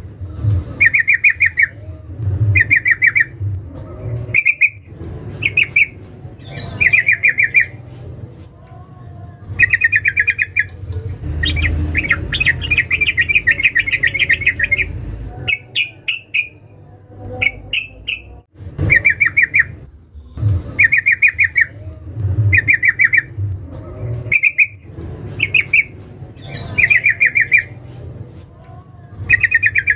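Female sooty-headed bulbul (trucukan) calling in short, fast rattling phrases repeated every second or two, with a longer run of chatter midway. This is the call a female uses to draw in a male, used as a lure.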